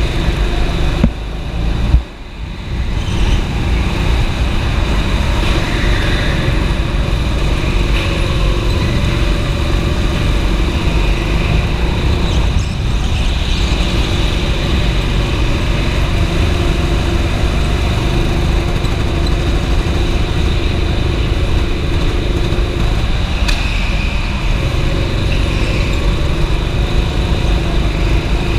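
Go-kart engine running as the kart is driven around the track, heard with heavy vibration rumble on the kart-mounted camera. There are two sharp knocks about one and two seconds in, then a brief dip in level.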